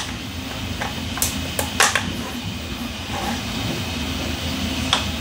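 A few sharp clicks and taps of 3D-printed plastic model parts being handled and fitted together, over a steady background hum.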